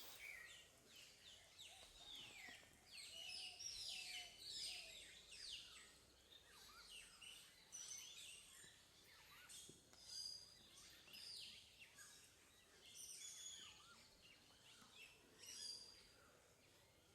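Faint birdsong: many quick, high chirps falling in pitch, overlapping one another throughout.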